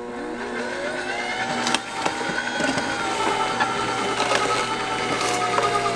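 Vertical slow juicer running, its auger crushing and grinding whole apples: a steady motor whine with irregular cracking and crunching as the apples break up.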